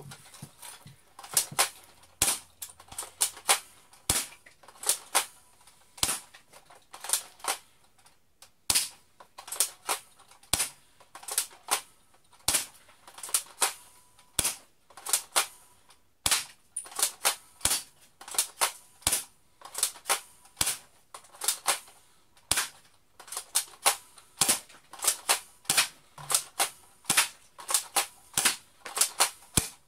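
Spring-powered Umarex L85A1 airsoft rifle being cocked and fired again and again: a long run of sharp mechanical clacks, about one or two a second.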